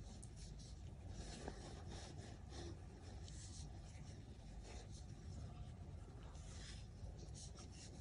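Faint rustling and scratching of cotton yarn sliding over a metal crochet hook and fingers as stitches are worked, in short irregular strokes over a low steady hum.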